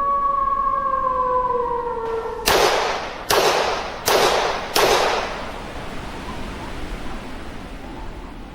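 Sound effects: a held horn-like tone that sinks slightly in pitch and stops, followed by four sharp bangs about 0.8 s apart, each trailing off into a fading hiss.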